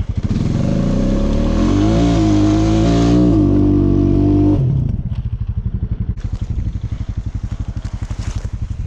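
Four-wheeler (ATV) engine revving up over about two seconds and holding high, then dropping back suddenly a little over halfway through to a pulsing idle.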